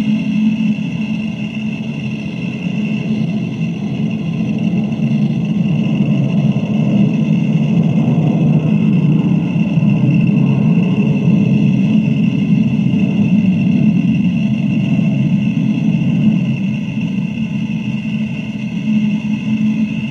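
Thousands of BBs poured in an unbroken stream into a metal container, a dense continuous rattle that swells toward the middle and eases a little near the end. Each BB stands for one megaton, and the pour as a whole represents the combined nuclear arsenals of the United States and the Soviet Union. It is heard played back from cassette tape.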